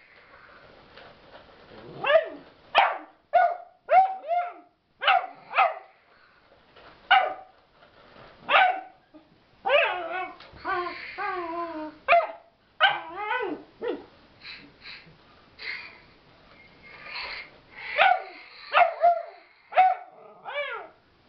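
Puggle puppy barking repeatedly, short high-pitched barks in quick irregular runs.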